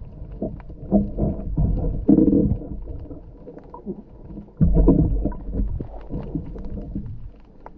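Muffled underwater sound of water moving and bubbling around a diver, heard from a camera in its waterproof housing. It comes in irregular low surges with faint clicks, and a sudden louder surge about four and a half seconds in.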